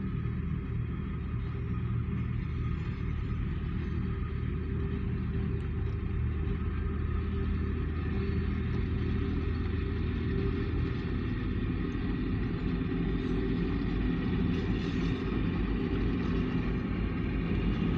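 Diesel-hauled freight train with grain hopper cars moving by: a steady low locomotive engine hum, strongest in the first half, under the continuous rumble of the rolling train.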